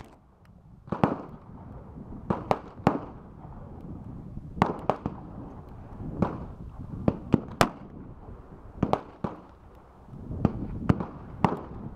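Gunshots on an outdoor range: a .45 Long Colt single-action revolver being fired, mixed with other shooters' gunfire. About fifteen sharp reports come at uneven intervals, some in quick pairs and triples, after a brief lull at the start.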